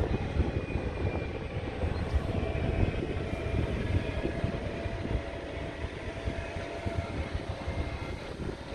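Wind buffeting the microphone outdoors: an uneven low rumble with gusty fluctuations, over a faint steady hum.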